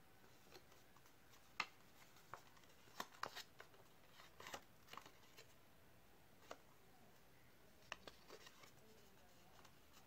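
Faint, scattered small clicks and light rustles, about a dozen, of hands working with small objects over near silence; the sharpest click comes about a second and a half in.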